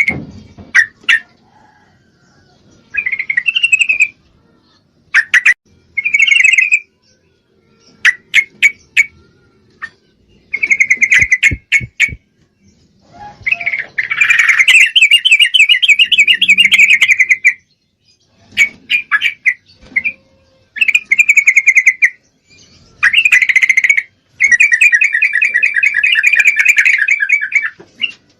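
Female yellow-vented bulbul (trucukan) calling in bursts of rapid, bubbly chattering notes. Most bursts are short, with two longer runs of a few seconds each in the second half. This is the female's call to a male while she is in breeding condition.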